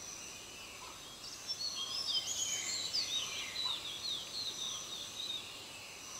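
Steady high drone of forest insects. From about a second in until near the end, a burst of rapid high chirping and squeaking calls, many short notes overlapping.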